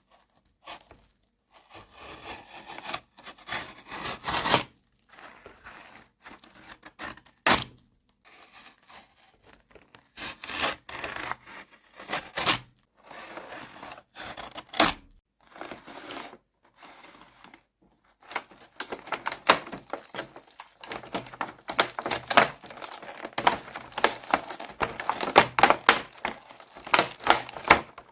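Hands handling small plastic toy pieces and packaging: irregular scraping, rubbing and clicking, growing busier in the last third.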